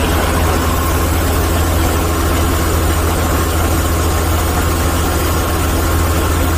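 Cummins diesel engine of a 2004 Soosan (Junjin) SD1000 crawler drill rig running steadily, with a strong low hum.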